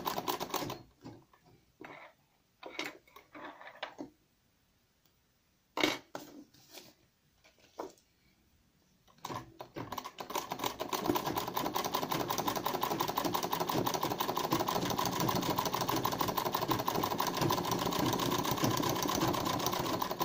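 Domestic sewing machine stitching free-motion embroidery: a fast, even run of stitches, a few short stop-start bursts, then about ten seconds of steady stitching from about halfway, stopping at the very end.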